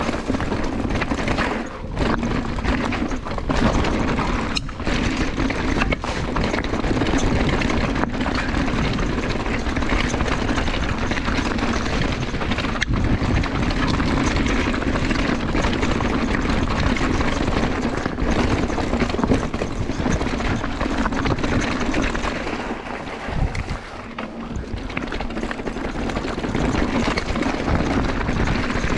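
Mountain bike rolling fast down dirt singletrack, with a steady rush of tyre-on-dirt and riding noise and the bike's chain and frame rattling. It eases briefly about three quarters of the way through, then picks up again.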